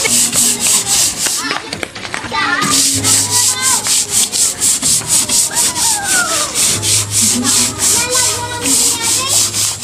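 Scrub pad rubbing back and forth against a painted board wall in quick, even strokes, several a second, with a pause of about a second early on before the scrubbing resumes.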